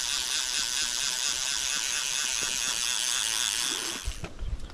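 Fishing reel's click ratchet buzzing steadily as the spool turns, then stopping abruptly about four seconds in, followed by a few short knocks.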